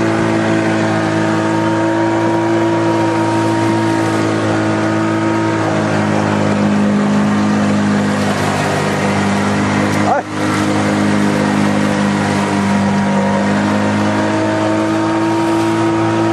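The engine of a motorised pipe-raft fishing boat (竹筏) runs steadily under way. Its pitch shifts slightly about six seconds in, and it drops out for a moment about ten seconds in.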